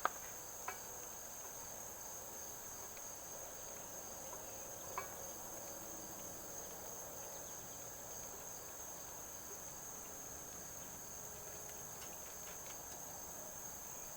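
Insects trilling in a steady, high, unbroken drone, with a few faint clicks near the start and once about five seconds in.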